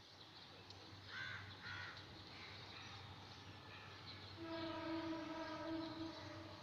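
Faint background sounds: two short bird calls about a second in, then a distant horn holding one steady note for about two seconds.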